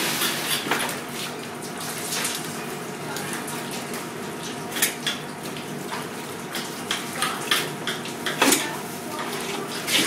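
Filleting knife cutting and scraping flathead on a plastic cutting board: irregular clicks, taps and short scrapes, the sharpest about five seconds in and again past eight seconds, over a steady background hum.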